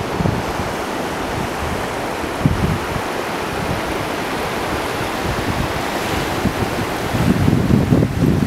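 Small waves washing in over flat sand at the sea's edge, a steady surf hiss, with wind buffeting the microphone in gusts that grow heavier near the end.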